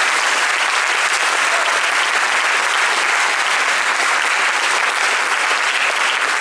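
Audience applauding, loud and steady without a break.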